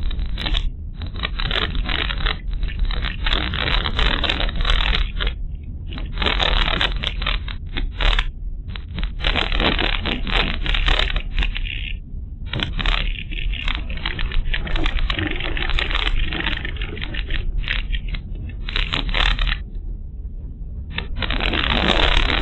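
Car driving over a rough unpaved road, heard from inside the cabin: a constant low road rumble with irregular spells of tyres crunching and scraping over gravel and stones, easing in places and coming back louder near the end.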